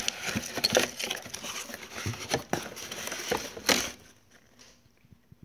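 Cardboard packaging of a rifle-scope box rustling, crinkling and clicking as it is handled and the cardboard insert is pulled away, stopping about four seconds in.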